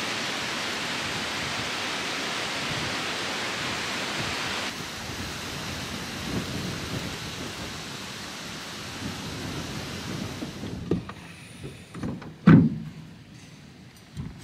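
Wind blowing hard across the microphone, a steady rushing noise that drops somewhat about five seconds in. Near the end come a few knocks and one loud thump as a person climbs into a pickup's bed under the camper shell.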